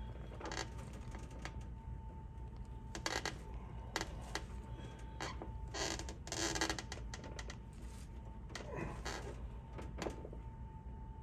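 A socket and metal parts being handled and pushed by hand onto the Optispark distributor shaft, making irregular short scrapes and clicks, over a faint steady hum.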